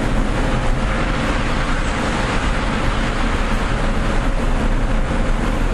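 Steady rumbling din of a parking garage, traffic-like noise with a faint steady hum through it.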